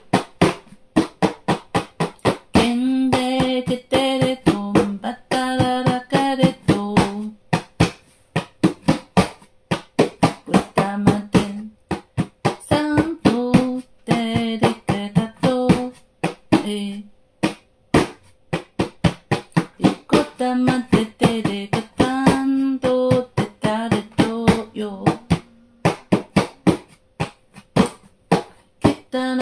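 A voice singing in tongues: wordless syllables on short held notes that alternate between two pitches, over a steady rhythm of sharp strokes about four a second.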